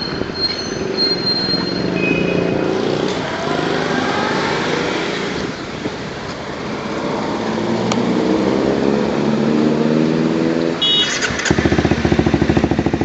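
Honda CBR250R's single-cylinder four-stroke engine, breathing through an aftermarket Leo Vince slip-on exhaust, revved up twice while standing: each time the pitch rises, and it drops back briefly between the two. Near the end a louder, even pulsing takes over.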